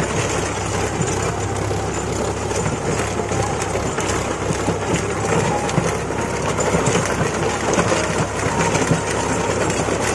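Sonalika tractor's diesel engine running steadily under load, pulling a rotavator whose spinning blades churn through dry, stony soil.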